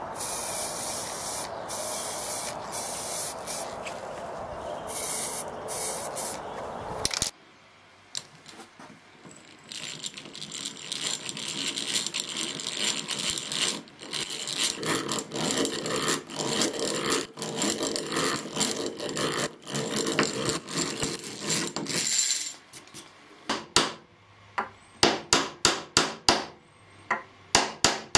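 An aerosol spray can hissing in bursts with short breaks, coating nails with black paint. After a brief pause, a drill bit grinds steadily into hardwood to bore a pilot hole. Near the end come quick sharp taps, about three a second, as nails are tapped into the wood.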